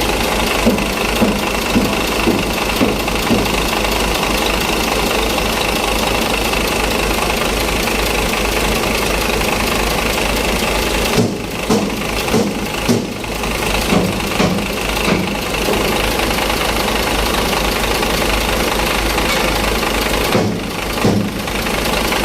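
Chenglong truck's diesel engine running steadily, with uneven bursts of louder knocking pulses about a second in, again through the middle, and briefly near the end.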